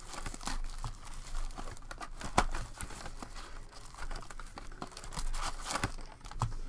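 Wrapped trading-card packs crinkling and a cardboard card box rustling as packs are lifted out and set down, with a run of small clicks and taps. One sharper knock comes about two and a half seconds in.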